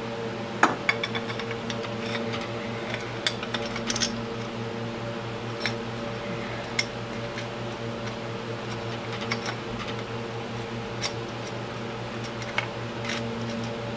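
Scattered light metallic clicks and clinks as the cam gear and timing chain are handled and set into an ATV engine's open cylinder head, over a steady low hum.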